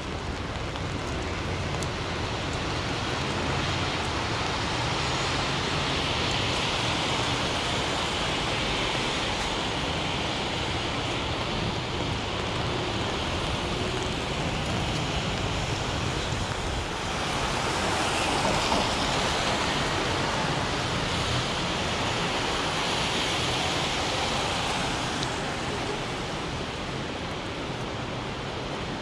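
Steady rain pattering on an umbrella, over the hiss and low rumble of traffic on wet city streets, swelling three times as vehicles go by.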